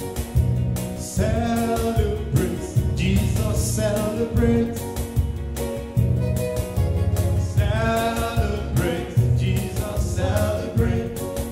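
A man singing a gospel song into a microphone over instrumental backing with a steady beat.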